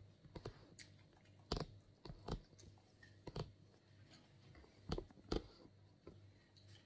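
Close-up eating sounds: chewing and biting food, with several sharp clicks and taps spread through, two close together about five seconds in being the loudest, over a faint steady low hum.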